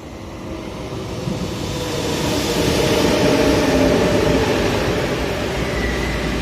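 RER commuter electric train running past at the platform, its rolling rumble building to its loudest about three seconds in and then easing off a little.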